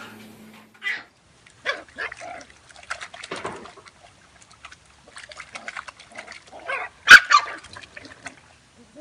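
A fluffy puppy's short yips and grunts in separate bursts, with some splashing in a plastic water basin. The loudest call comes about seven seconds in.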